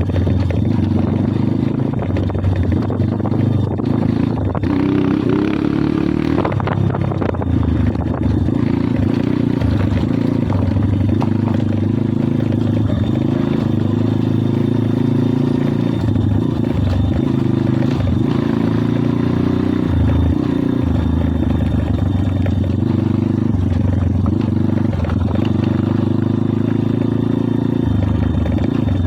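Kayo 140cc pit bike's single-cylinder four-stroke engine running steadily while riding, with a few brief dips and changes in the engine note.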